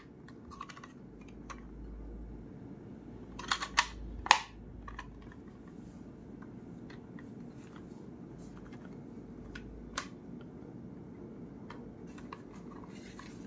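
Handling noise from a Kenwood DPC-X602 portable CD player turned over in the hands, with scattered clicks of its plastic casing and a short cluster of sharper clicks about a third of the way in.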